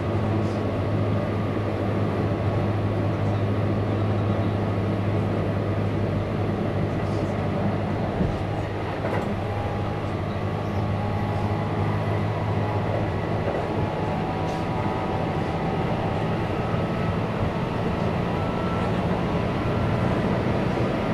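Running sound of a Keihan 8000 series electric train heard from inside a passenger car: a steady rumble of wheels on rails under a constant low drone, with faint steady whining tones above.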